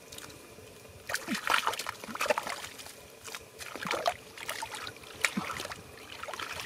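Gloved hands groping and sloshing through shallow muddy water, with irregular splashes and trickling drips in several bursts.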